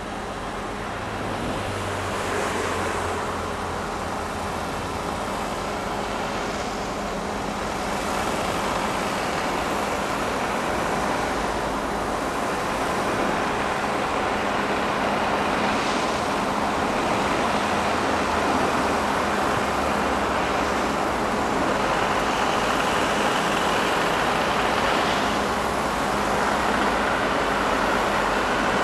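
Steady mechanical din of diesel construction machinery, excavators and a dump truck, running at a building site, with a constant low hum under an even rumble.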